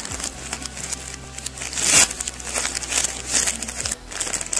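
Crinkly plastic bag of wrapped Sun Rice chocolate bars crinkling as it is handled and turned over, with a loudest crinkle about two seconds in.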